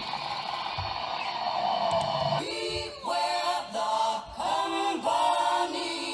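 Hip-hop track playing: a sustained music intro, with a singing voice coming in about two and a half seconds in.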